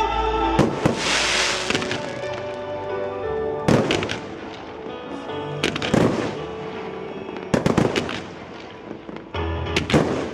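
Fireworks going off: sharp bangs every second or two, some in quick clusters, over music with held tones.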